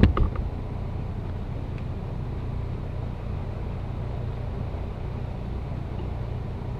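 Steady low background hum with no distinct events, apart from a couple of faint clicks right at the start.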